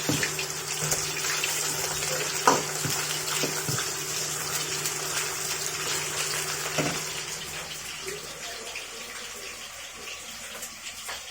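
Pork slices sizzling and frying in hot rapeseed oil in a wok, with a few sharp knocks of the spatula against the pan. A low steady hum underneath cuts out about eight seconds in, and the sizzle grows a little quieter.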